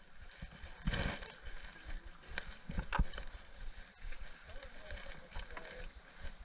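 Handling noise as a boxed stopwatch is slid out of its cardboard sleeve and lifted from a plastic tray: light scattered clicks and rustles, the loudest knock about three seconds in, over a low irregular wind rumble on the microphone.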